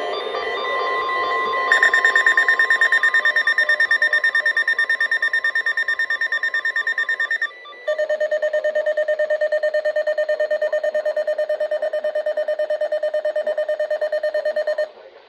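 Electronic weather-radio alert alarm beeping in fast pulses, about nine a second: a high-pitched beep starting about two seconds in, a brief break about halfway, then a lower-pitched beep that stops just before the end.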